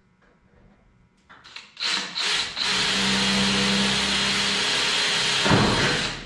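Cordless drill boring through a race car's body panel to make a rivet hole: a few short starts of the bit, then about three and a half seconds of steady drilling that stops just before the end.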